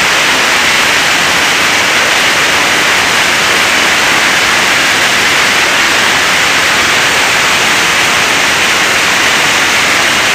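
Waterfall water crashing down close to the microphone: a loud, steady rushing roar with no let-up.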